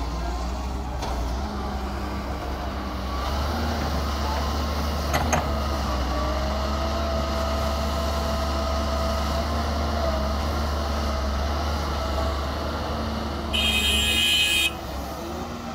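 Doosan DX140W wheeled excavator's diesel engine running steadily while it digs and loads soil, with a steady whine over it through the middle. Near the end, a loud high-pitched hiss lasting about a second.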